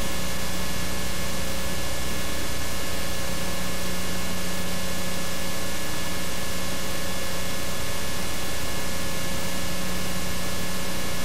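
Steady hiss with a constant low hum and a few fainter steady tones, unchanging throughout: the background noise of an old camcorder tape recording, with no other sound standing out.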